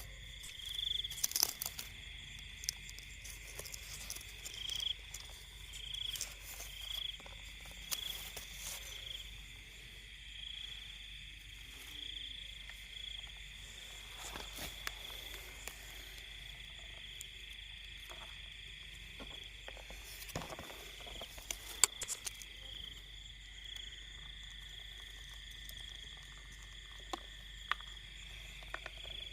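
Night chorus of crickets and other insects: a steady high trill, with short louder chirps on top about once a second, and scattered clicks and rustles.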